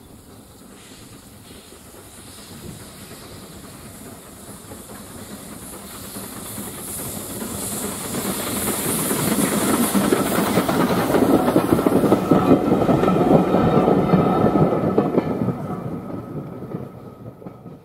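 Small steam tank locomotive and its coach running past: wheels clattering on the rails with steam hiss, growing louder as it approaches, loudest from about ten to fifteen seconds in, then fading as it goes by.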